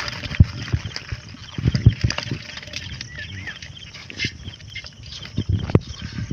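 A wet fishing trap net being shaken out into a wire-mesh basket, its catch of small live fish dropping in and flapping: irregular thumps and wet slaps with rustling.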